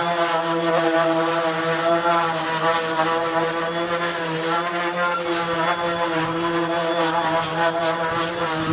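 An electric power tool's motor switches on and runs steadily at an even pitch, with a strong hum. This is typical of a sander or similar tool at work during furniture refinishing.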